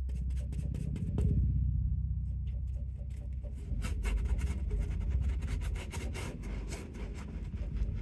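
Paintbrush dragging thick paint across textured canvas in a run of short, scratchy strokes, busiest in the middle of the stretch, over a steady low rumble.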